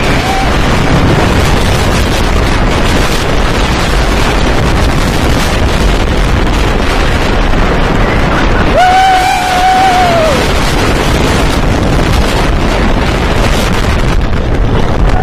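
Wooden-track roller coaster train running at speed: a continuous loud rumble and rattle of the wheels on the track, mixed with wind blasting over the microphone. About nine seconds in, a rider gives one long scream that rises and falls over a second and a half.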